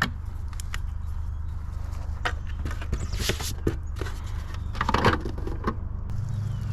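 Hands rummaging and handling small hardware and tools: scattered clicks, taps and rustles, with two short bursts of rustling around three and five seconds in, over a steady low hum.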